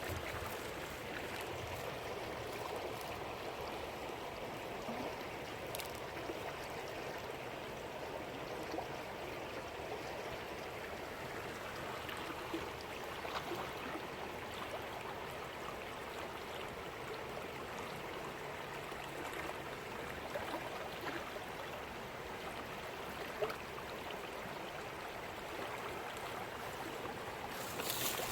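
Steady rush of flowing river water: the Ausable River running high and overflowing after heavy rain.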